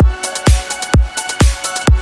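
Electronic dance background music with a steady kick drum, about two beats a second, under sustained synth tones.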